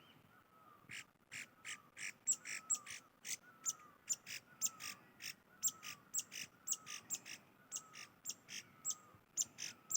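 Wild birds calling: rapid, sharp chirps several times a second, with a lower whistled note falling in pitch repeating about once a second.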